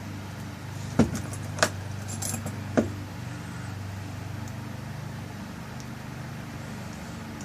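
Small metal lock parts clicking and clinking as a door-lock cylinder's tail piece is fitted and screwed back on, with three sharp clicks in the first three seconds. A steady low hum runs underneath.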